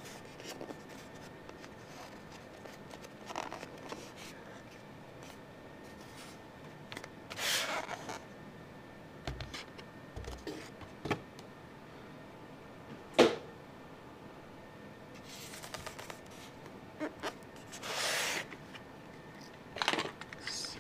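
Intermittent handling sounds from hands moving a styrofoam packing block and the printed sheet lying on it: scattered rustles and scrapes, with one sharp knock about thirteen seconds in.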